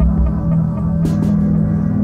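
Ambient background music built on a sustained low drone, with a deep thud near the start.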